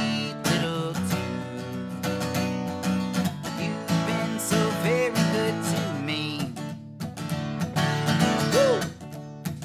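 Acoustic guitar playing alone, strummed chords in an instrumental break of a folk-style song.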